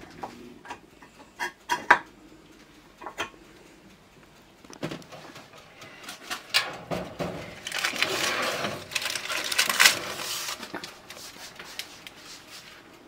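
A baking tray being taken out of a countertop electric oven and handled: a few light clicks, then knocks and clatter, and a couple of seconds of scraping and rustling near the middle.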